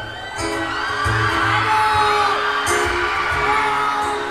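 Live acoustic guitar playing, with the audience cheering and screaming over it from about half a second in.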